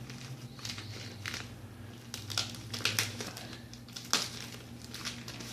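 Shipping package wrapping crinkling and crackling as it is cut and pulled open with a dull small knife, in irregular crackles with a few sharper snaps. A steady low hum runs underneath.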